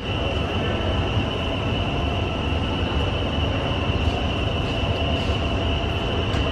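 DART 8100-class electric commuter train standing at the platform with its doors open. It gives off a steady low rumble with a steady high-pitched whine over it.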